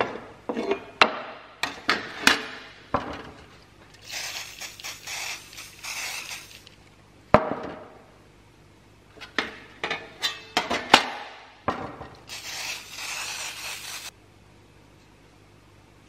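Steel handsaw blades and small metal parts clinking and clanking on a workbench as they are handled and laid down. Two stretches of steady hiss come in, about four seconds in and again about twelve seconds in.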